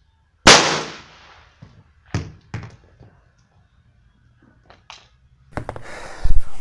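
A single shot from an IOF .32 revolver fired into a row of green coconuts, sharp and loud with a short echo off the walls. About two seconds later two thuds as the struck coconut drops onto the concrete and bounces. Near the end, knocks and rustling as coconuts are handled on a wooden plank.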